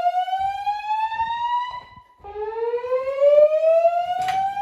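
Gentex fire alarm speakers sounding a voice-evacuation system's whoop tone, a slowly rising sweep. One sweep tops out and stops about two seconds in, and after a short break the next one begins climbing.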